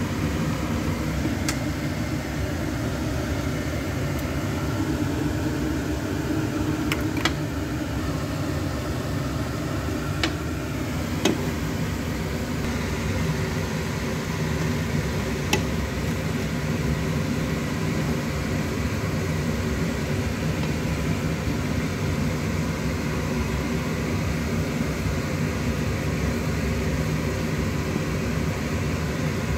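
A steady mechanical hum, like a fan running, with about five sharp clicks of a wooden spatula against a frying pan as mushrooms and chicken are stirred; the loudest click comes about eleven seconds in.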